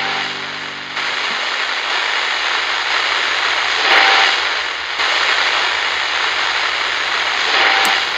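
A loud, steady rushing noise that swells twice, about four seconds in and again near the end. A held musical chord underneath fades out in the first second and a half.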